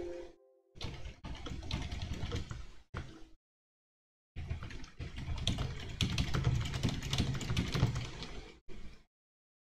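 Typing on a computer keyboard in quick runs of key clicks, with a pause of about a second a third of the way in.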